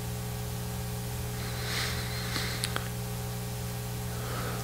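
Steady electrical hum and hiss from the microphone and sound system during a pause in speech, with faint rustling and two soft clicks about two and a half seconds in.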